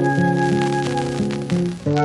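Instrumental passage of a 1970s Korean folk record played on a vinyl LP turntable, without singing: evenly repeating pitched notes over a low bass line, dipping briefly near the end.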